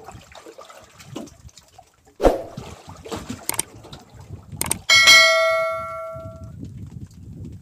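A bell 'ding' sound effect from a subscribe-reminder overlay, ringing out loudly about five seconds in and fading away over a second and a half, preceded by a few sharp clicks.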